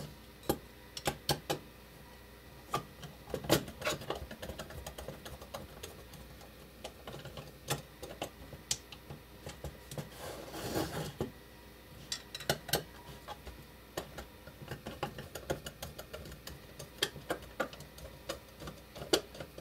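Screwdriver backing the screws out of a Siemens 3TB41 relay's plastic housing: irregular small clicks and taps of the bit, the screws and the plastic case on a wooden bench, with a short scuff about eleven seconds in.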